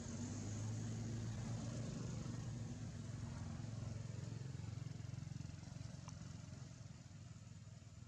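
A motor vehicle's engine running steadily at a distance, loudest near the start and slowly fading as it moves away.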